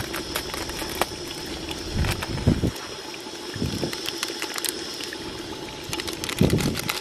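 Mutton curry simmering in an aluminium handi: a steady watery hiss with scattered faint crackles. A few dull low thumps come about two, three and a half and six and a half seconds in.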